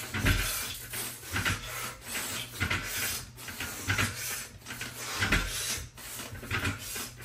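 A person doing pull-ups: hard, rhythmic breaths with low thuds and rubbing from the body and the bar, a burst about every two-thirds of a second.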